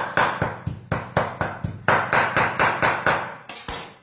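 Kitchen knife chopping raw beef on a wooden cutting board, hand-cutting the meat for tartare, at about four strikes a second. The chopping stops just before the end.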